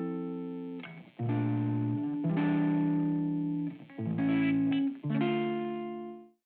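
Background music of held chords that change every second or so, fading out and stopping near the end.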